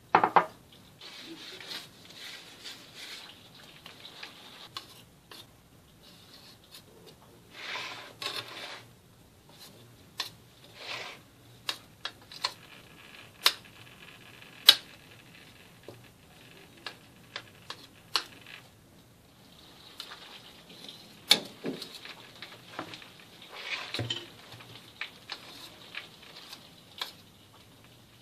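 Kitchen handling noises as hands press and work a cake layer inside a stainless-steel cake ring, with scattered sharp clicks and knocks against the metal and soft rubbing and scraping sounds in between.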